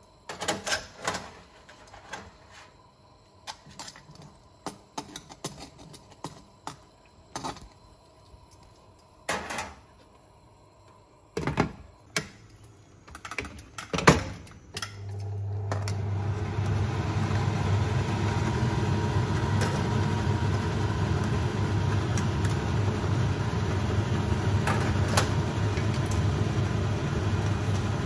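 Metal tongs knocking and clinking against a cooking pot as crabs are handled in the boiling water. About halfway through, a steady hum with a rushing noise starts up and runs on.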